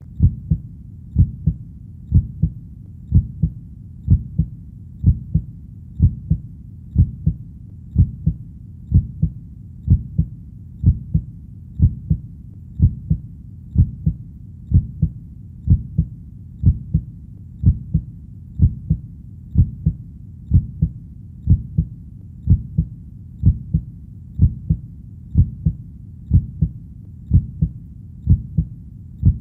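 Heartbeat, a steady lub-dub of low thumps in pairs, about one beat a second, over a faint low background hum.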